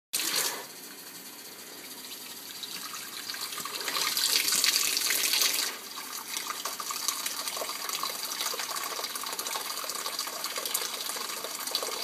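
Open kitchen faucet running a thin stream, about 0.9 gallons a minute, into a plastic bucket: a steady splashing hiss of water. It is louder for a stretch around the middle, then settles to an even splash.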